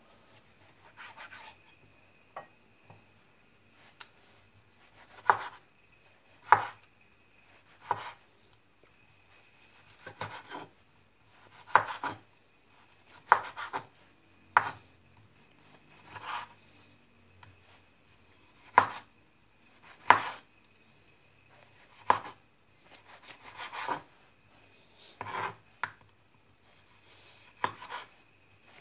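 Knife cutting cherry tomatoes on a wooden cutting board: separate sharp knocks of the blade meeting the board every second or two, some with a short scraping sound just before as the blade saws through the skin.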